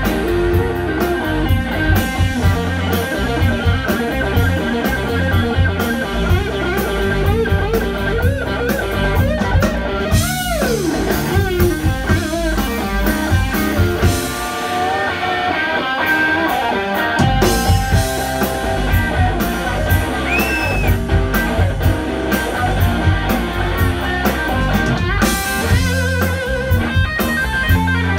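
Live blues band: an electric guitar played through a Colorsound Bluesman amp, with string bends, over bass and drums. About halfway through, the low end drops out for a few seconds, leaving the guitar, before the full band comes back in.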